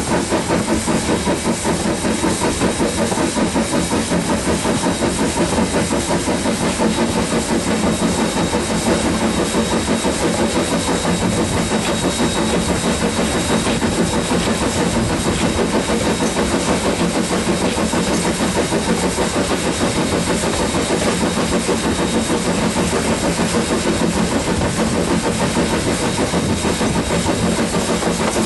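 QR PB15-class steam locomotive 448 running under steam, its noise steady with a rapid, even beat throughout.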